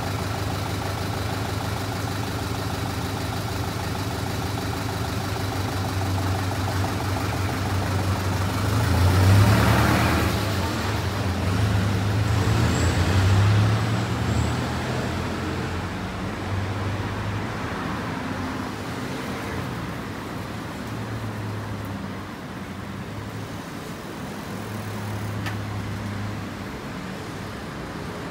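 Road traffic: a steady engine hum with vehicles passing, loudest about nine to ten seconds in and again around thirteen seconds, then easing off.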